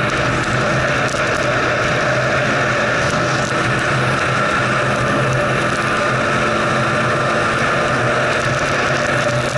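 Snowmobile engine running steadily while the machine travels at speed, heard from the rider's position, with a constant drone and no revving changes.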